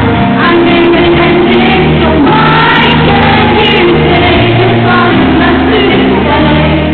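Live band music: a woman singing over keyboard and guitars, heard from the audience in a concert hall.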